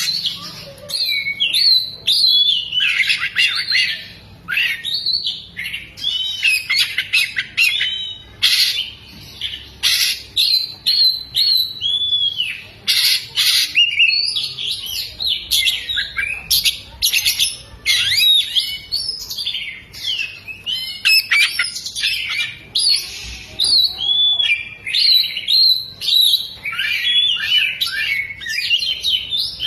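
Oriental magpie-robin singing without pause: a rapid, varied stream of whistled glides and chattering phrases, its song filled in with mimicked lovebird calls.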